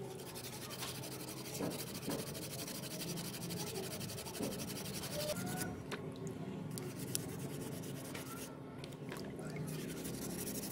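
A sponge scrubbing the steel jaws and handles of needle-nose pliers in a tub of water: steady rubbing and scratching strokes with a couple of short breaks.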